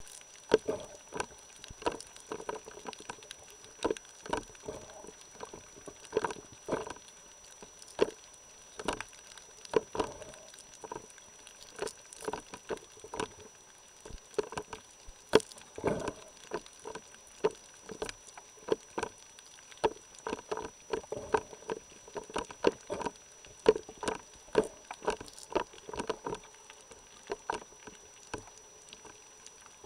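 Underwater sound picked up by a submerged camera: irregular sharp clicks and knocks, several a second, over a faint steady high whine.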